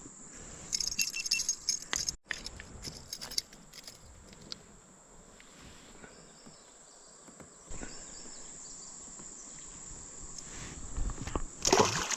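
Steady high-pitched drone of insects, crickets or cicadas, with a cluster of sharp clicking and knocking handling noises a second or so in and a louder rustling knock near the end.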